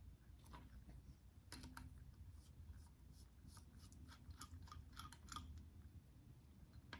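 Faint, irregular light clicks and taps, several a second, of small metal engine parts being handled while the rocker arm and pushrod are worked over, with a low room hum underneath.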